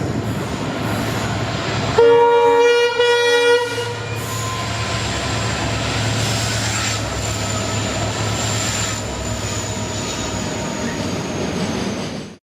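Horn of an Indian Railways EMD WDG4-class diesel locomotive giving a single weird-sounding honk of about a second and a half, starting about two seconds in. Around it the loaded freight train's locomotives run with a steady low drone, and there is a thin high whine and wheel noise.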